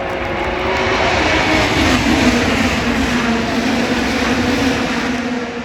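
A field of IndyCars with twin-turbo V6 engines racing past at full throttle on the green-flag start: many engines overlapping into one dense sound. It grows louder about a second in and eases slightly near the end.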